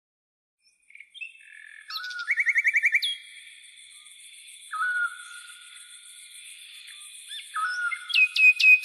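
Recorded birdsong: small birds chirping and trilling in overlapping calls, with quick runs of repeated notes. It begins about a second in.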